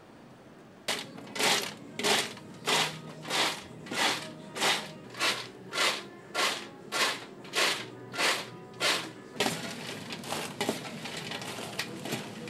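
Freshly fried fries being shaken: a rhythmic crisp rustling swish about one and a half times a second, some fourteen strokes, then a denser steady crackling rustle for the last few seconds.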